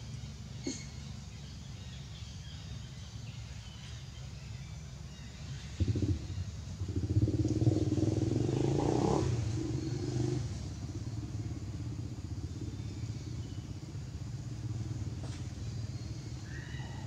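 Motor vehicle engine running steadily in the background, growing louder from about six seconds in, loudest around nine seconds, then easing back down as it passes.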